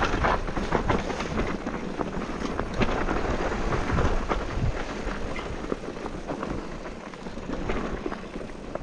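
Electric mountain bike riding over rough, dry trail: tyres crunching on dirt and loose stones and the bike rattling, a dense, uneven clatter of small knocks over a low rumble.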